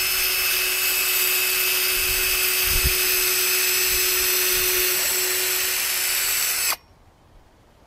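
Cordless drill running steadily at full speed, boring a pilot hole through a wooden deck plank with a twist bit. It stops suddenly near the end.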